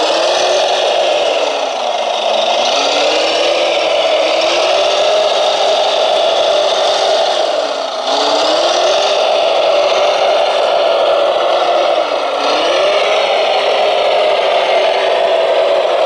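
Radio-controlled Volvo wheel loader model running, a steady motor whine with a lower tone that sags in pitch and climbs back about three times as the machine slows and pulls away again on gravel.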